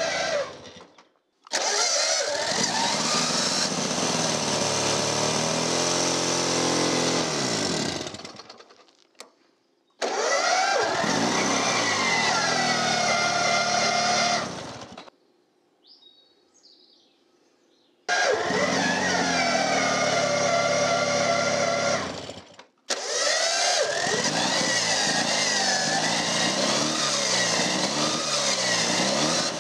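1937 Scott's two-stroke twin engine, spun up on starter rollers, fires and runs with revs rising and falling, then dies away, in four stretches with short gaps between. It smokes heavily because too much oil in the crankcase is mixing with the fuel, and it keeps dying away.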